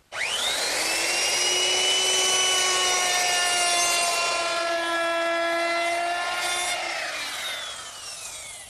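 Electric router with a 3/8-inch round-over bit, starting up with a fast rising whine, then running at speed as it cuts along the edge of an oak door frame. It is switched off about seven seconds in and winds down with a falling whine.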